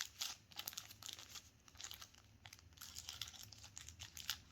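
A small packaging bag crinkling and crackling in the hands as a clip accessory is pulled out of it: a run of faint, irregular crackles that thin out mid-way and pick up again near the end.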